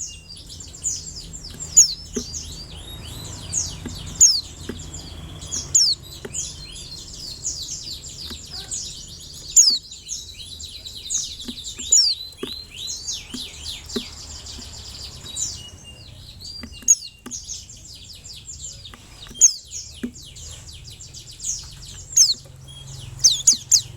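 Pleci (white-eye, Zosterops) twittering: a rapid, unbroken stream of high, thin chirps and short sliding notes, with frequent louder sharp notes standing out, over a faint low hum.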